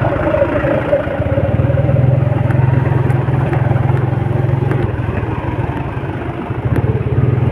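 Motorcycle engine running steadily at low speed in slow traffic, a close, even low hum with a fast pulsing rhythm.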